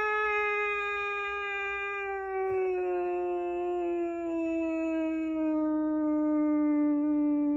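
Air raid siren sounding one long tone: it holds a high pitch, then from about two seconds in slowly falls lower.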